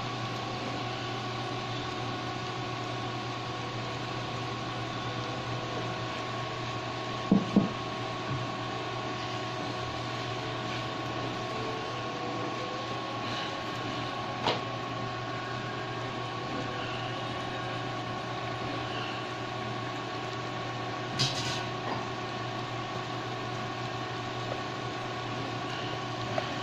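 Steady hum of an electric fan motor, with a few light knocks of a silicone spatula and bowl against a stone-coated wok, two of them close together about seven seconds in.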